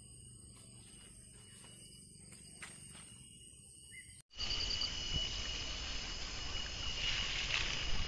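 Insects shrilling in several steady high tones, with a few faint taps. About four seconds in the sound breaks off for a moment, and the insects carry on over a low rumbling noise.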